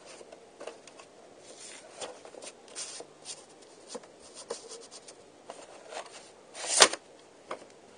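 Paper pamphlet and VHS tape case being handled: faint rustling and scraping with small clicks, and one louder sharp click near the end.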